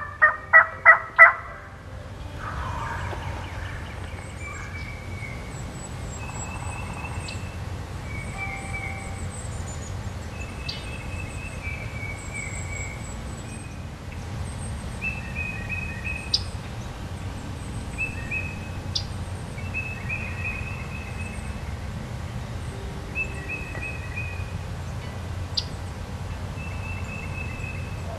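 Wild turkey gobbler gobbling loudly once right at the start, a rapid rattling burst lasting about a second. After it, songbirds chirp and sing short repeated notes over a low steady background.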